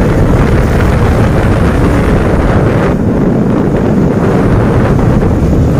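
Wind rushing over the microphone mixed with a KTM sport motorcycle's engine running steadily at road speed.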